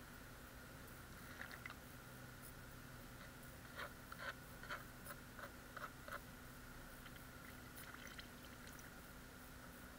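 Faint wet squishing of a plastic snuffer (suction) bottle being squeezed and released with its nozzle in the water of a plastic gold pan, sucking up fine gold from the concentrates. A quick run of about seven soft squelches comes in the middle, with a few weaker ones before and after, over a faint steady hum.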